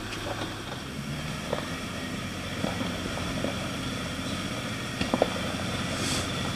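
Jeep Wrangler JK engine running steadily at low speed on a rocky hill climb, with a couple of sharp knocks about five seconds in.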